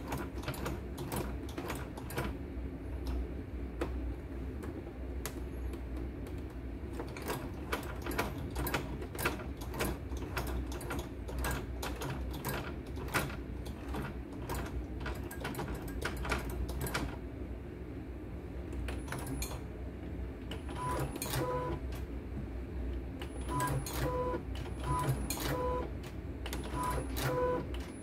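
A CNY computerized embroidery machine running, with a steady low hum and irregular mechanical clicking from its needle and frame mechanism. Over the last several seconds its control panel gives a series of short beeps as buttons are pressed.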